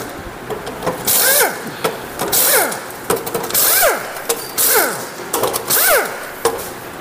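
Crankcase bolts of a Hero Passion Pro BS6 engine being undone with a tool: five short whirring spurts, about one every second and a quarter, each rising and then falling in pitch.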